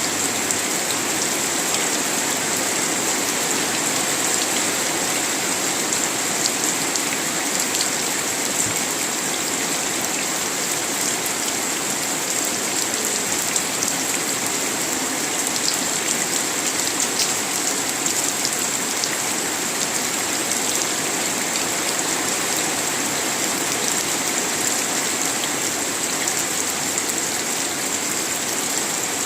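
Steady rain falling: an even hiss with many small drop ticks scattered through it, and no thunder.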